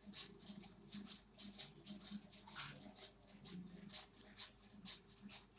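Faint, irregular soft clicks, about three a second, over a quiet room hum.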